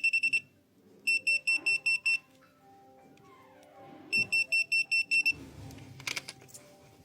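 Handheld electrician's voltage tester giving three bursts of rapid, high-pitched beeping, about seven beeps a second, the tester's signal that the wire it touches is live. A brief clatter follows near the end.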